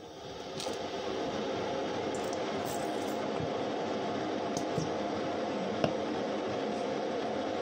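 A steady machine hum comes on within the first second and holds level. Over it are a few faint clicks and squelches as honey mustard is squeezed from a plastic squeeze bottle onto bread.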